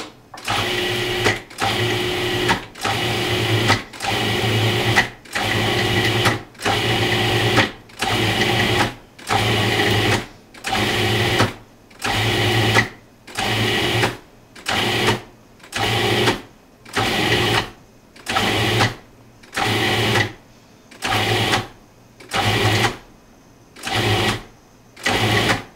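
Cuisinart 14-cup food processor motor pulsed on and off about eighteen times, each burst a second or less, the bursts getting shorter and further apart toward the end. It is working ice water into flour, butter and sugar, stopping once the pastry dough clumps together.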